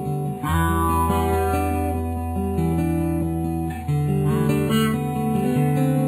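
Background music played on acoustic guitar, with a new chord coming in about half a second in.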